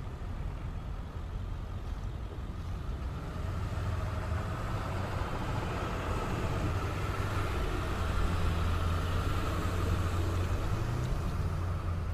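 Ceccato CSA-20 rotary screw air compressor running on load, a steady low mechanical hum that grows a little louder a few seconds in. Its delivery pressure is building from about 8.1 to 8.7 bar.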